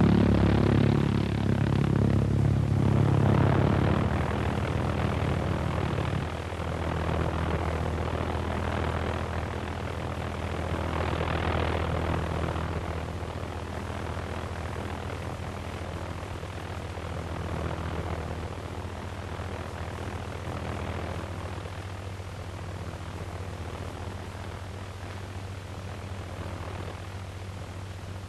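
V-1 flying bomb's Argus pulsejet buzzing in flight: a steady, low droning buzz that is loudest at first and fades gradually as the bomb flies away.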